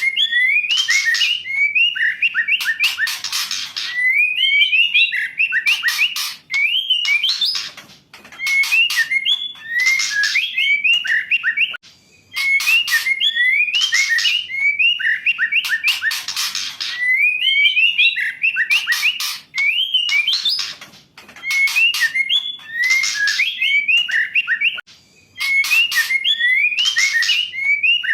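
Female white-rumped shama calling: short whistled notes that rise and fall, alternating with harsh raspy calls, the same phrase repeating every few seconds with brief pauses.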